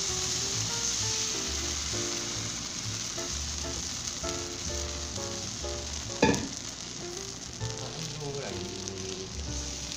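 Takoyaki batter sizzling in a hot, oiled cast-iron takoyaki pan as it is poured into the cups, a steady frying hiss. A brief sharper sound comes just after the middle.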